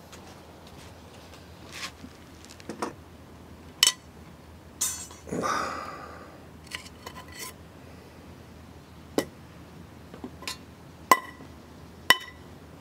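Camping tableware being handled and set down: scattered clinks and knocks of cups and dishes, a few of them ringing briefly, with a longer scraping sound about five seconds in.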